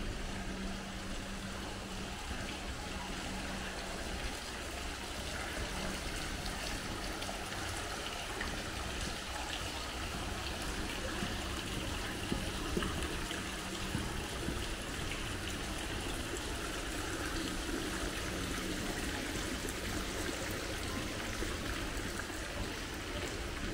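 Steady city street ambience: an even wash of noise with a low hum that comes and goes.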